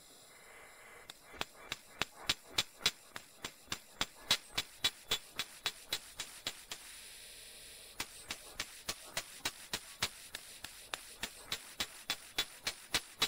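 Small hammer tapping a thin brass pin into the socket of a steel pharsa (axe) head: light, ringing metal-on-metal taps about four a second, with a pause of about a second halfway through.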